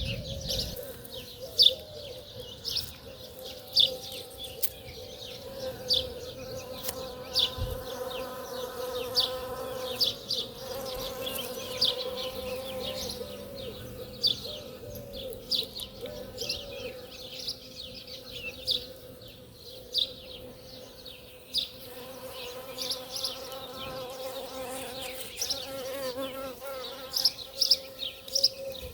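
Bee buzzing in a steady, slightly wavering hum close by, while songbirds chirp repeatedly over it in short, sharp notes that are the loudest sounds.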